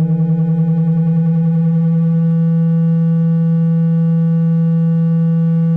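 A phone speaker-cleaning app playing its low cleaning tone, meant to shake water and dust out of the speaker. The tone pulses rapidly for the first second or two, then holds steady and loud.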